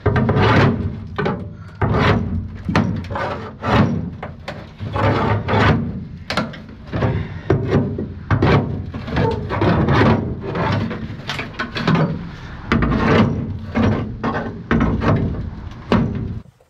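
Rusted sheet-steel cargo floor pan of a Jeep Cherokee XJ banging and scraping against the body as it is wrenched free, with repeated irregular metal clunks, about two or three a second. The sound drops away just before the end.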